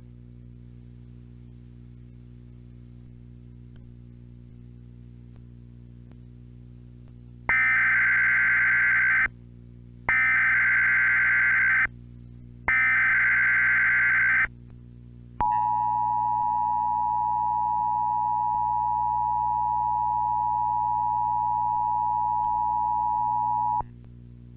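Emergency Alert System tones. A low steady hum runs for about seven seconds. Then come three short bursts of SAME header data, each under two seconds with brief gaps between, followed by the steady two-tone 853/960 Hz attention signal, held for about eight seconds.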